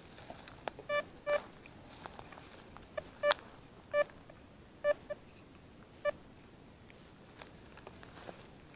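Detech Chaser metal detector giving about seven short beeps, all at the same pitch and in irregular bursts, as its coil is swept over a target that reads as iron.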